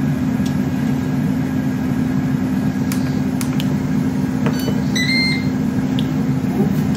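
Ninja dual-zone air fryer running, its fan giving a steady hum as it preheats. A short electronic beep sounds about five seconds in as the second zone is started from the control panel.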